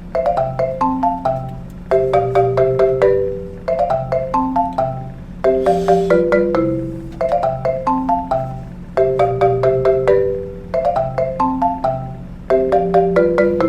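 Background music: a marimba-like mallet melody in short repeating phrases, each starting sharply and fading, over a steady low tone.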